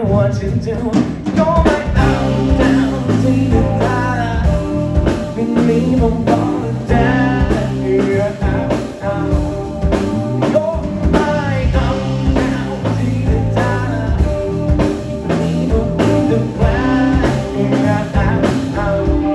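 Live band playing amplified rock: electric guitar, electric bass and a drum kit, with the bass repeating a riff over a steady drum beat.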